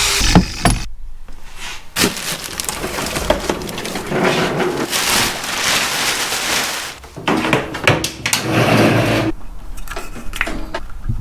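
Arc welder laying weld beads on steel: an irregular crackling hiss in a few runs, with short breaks between them.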